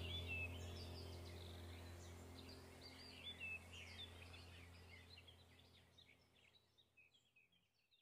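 Birds chirping over a low steady hum, the whole background fading out gradually to silence near the end.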